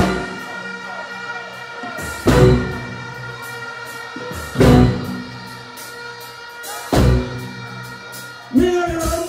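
Live band music over a stage PA: sustained keyboard chords broken by heavy drum-and-bass hits about every two seconds, with singing coming back in near the end.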